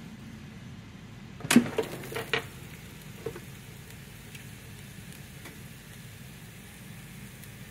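Kitchenware clattering, a quick run of four or five knocks and clinks about a second and a half in and one more a second later, over a steady faint sizzle.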